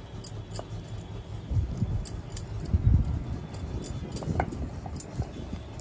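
Wooden rolling pin (belan) rolling dough out on a marble rolling board, a soft low rumble that swells with the strokes, with faint clinking of bangles on the wrists.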